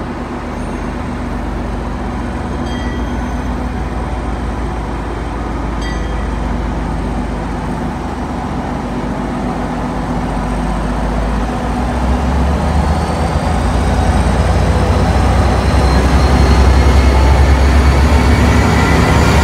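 Tri-Rail diesel-electric locomotive pulling its train out of the station, its diesel engine running steadily and growing louder as it comes close. A rising whine joins in about two-thirds of the way through as the train picks up speed.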